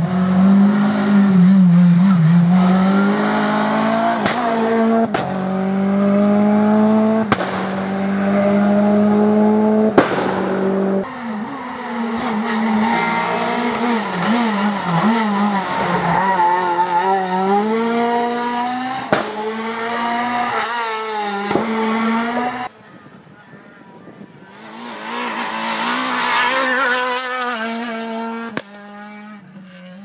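Renault Clio R3 rally cars' 2.0-litre four-cylinder engines at high revs, several passes cut together. The engine pitch climbs and drops sharply again and again with quick upshifts under hard acceleration, and another car gets louder near the end.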